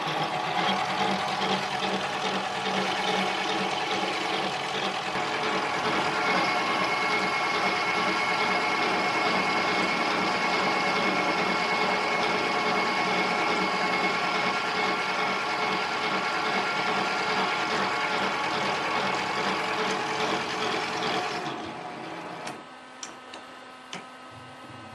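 Harbor Freight mini lathe running with its small motor whining steadily while cutting the workpiece. About 22 seconds in it is switched off and the sound stops, leaving a few light clicks.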